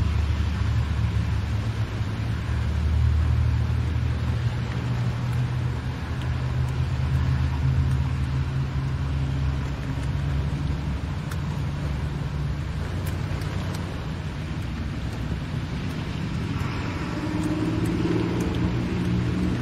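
Car interior while driving in the rain: a steady low rumble of engine and road noise through the cabin, with an even hiss of rain and wet tyres over it. The sound swells briefly near the end.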